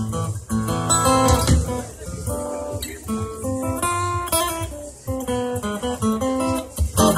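Cuban son music led by acoustic guitar, picked note by note and strummed, with a sharp accented stroke near the end.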